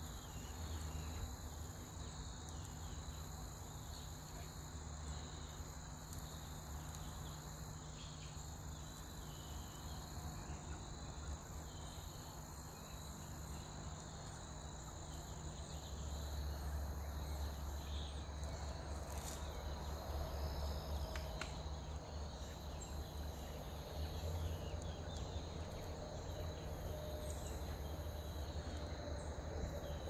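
Insects calling in a steady, continuous high-pitched drone at two pitches, over a low rumble that grows louder about halfway through, with a few faint clicks.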